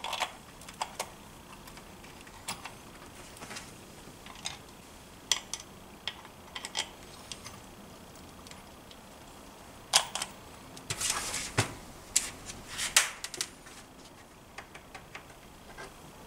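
Scattered light metallic clicks and clinks of moped engine case parts and a tool being handled on a metal workbench, with a busier run of clicks about ten seconds in.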